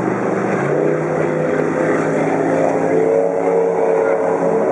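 Motorboat engines running at speed, several engine notes overlapping and shifting in pitch as the boats pass, over the hiss of churning water.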